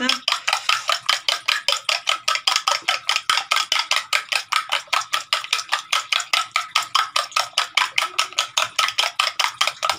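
Egg being beaten with a metal spoon in a steel bowl, the spoon clicking against the bowl about six or seven times a second in an even rhythm, with the bowl ringing.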